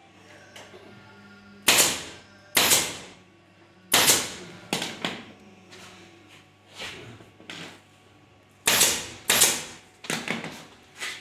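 Pneumatic staple gun firing staples through upholstery fabric into a wooden bed frame. About a dozen single shots at irregular intervals, each a sharp crack with a brief fading tail, several in quick succession near the end.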